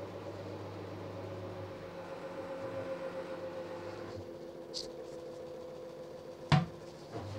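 LG F1058ND5 direct-drive washing machine running with a steady whining hum, a noise the owner suspects may come from the pump. A single sharp knock about six and a half seconds in.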